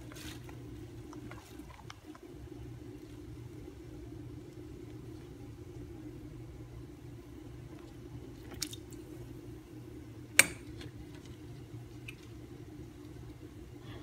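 Butter being cut from its plastic wrapper with a knife over a steel pot: a few sharp clicks and taps, the loudest about ten seconds in, over a steady low hum.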